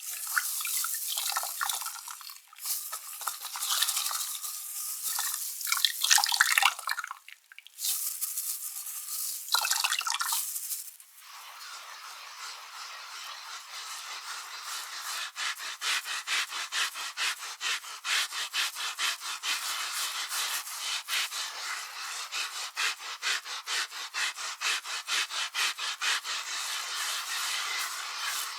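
A carpet being scrubbed, rubbing strokes across the pile. The strokes are uneven with short pauses at first, then from about a third of the way in settle into quick, even back-and-forth scrubbing several times a second.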